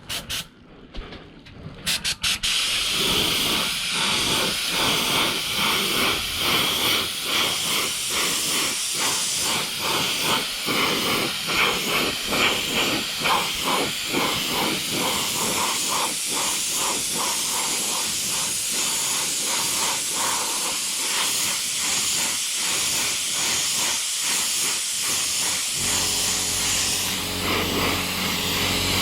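Compressed-air spray gun spraying metallic black paint: a steady hiss that pulses about twice a second, after a few short bursts in the first two seconds. A low steady hum joins in near the end.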